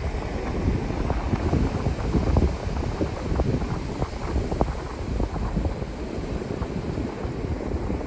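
Wind buffeting the microphone, a gusty low noise, over the steady wash of ocean surf breaking on the beach.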